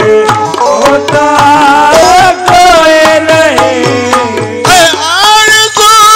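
Live qawwali music: a steady melodic accompaniment with hand-drum strokes. The lead qawwal's voice comes in strongly about five seconds in.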